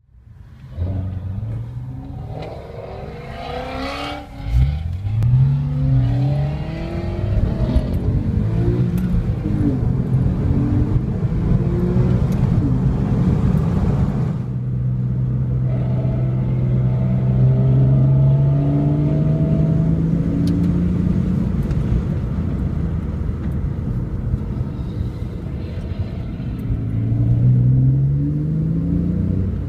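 Holden HSV GTS V8 exhaust, heard from a following car, accelerating hard several times, its pitch climbing with each pull. Pops and crackles come between the pulls.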